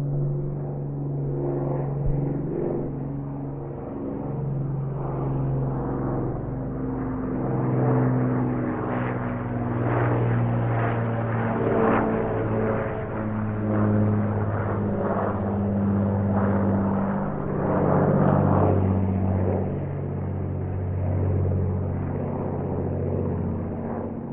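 Piston-engine drone played by the onboard sound-effects unit of a HobbyKing Avro Lancaster RC model, mixed with its propellers, the engine tones shifting up and down in pitch and the sound swelling and fading.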